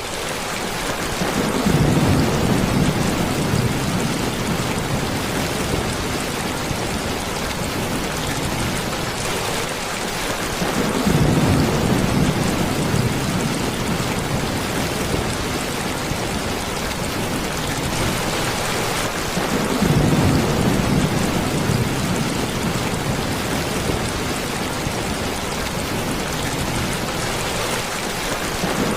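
Steady heavy rain hissing, with a low rumble swelling up and fading three times, about every nine seconds.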